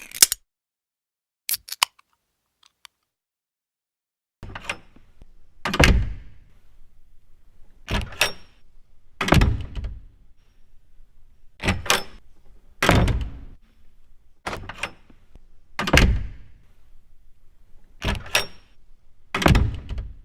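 A series of heavy thuds, one every second or so, each with a short ringing tail. A few faint clicks come first, and the thuds begin about four seconds in.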